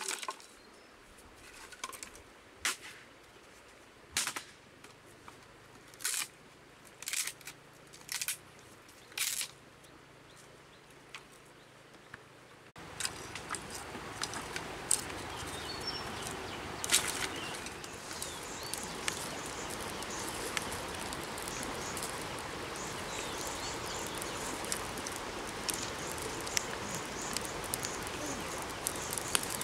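Dry wooden sticks clacking as they are laid on a pile, several separate sharp knocks. About halfway through, a steady hiss dotted with small crackles takes over as the stick fire catches.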